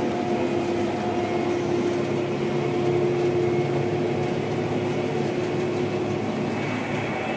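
Gleaner R72 combine running steadily, a constant mechanical drone with a steady whine that fades out about six seconds in.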